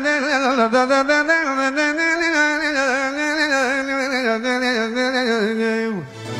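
A man singing a long wordless line in a manele song, the melody wavering in quick ornaments and turns. About six seconds in it slides steeply down and breaks off.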